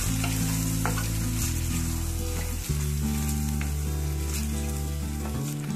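Mutton and ground masala paste sizzling in a pressure cooker as a wooden spatula stirs and scrapes through it, being sautéed. Background music of held low notes plays under it, changing note every second or so.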